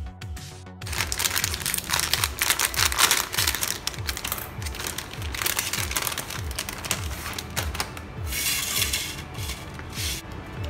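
A plastic bread bag crinkling and rustling as a loaf is worked out of it, starting about a second in, over background music with a steady beat.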